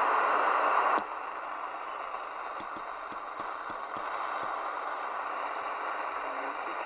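Static hiss from a Midland Alan 8001 CB radio receiver between transmissions. A louder rush of noise cuts off about a second in, leaving steady, quieter hiss. A run of about seven faint clicks comes a little later.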